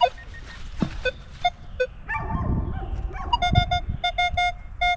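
Metal detector beeping while a dug target is rescanned: a few single tones at differing pitches, then a quick run of identical short beeps as the target is pinpointed. Low scrapes and thumps of digging sound underneath.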